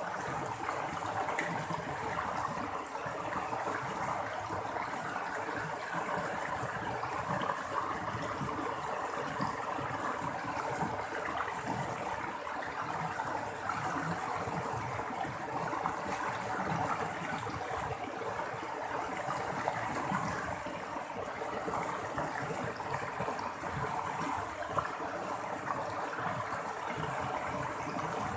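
Running water babbling and splashing steadily, like a small stream or trickling outflow.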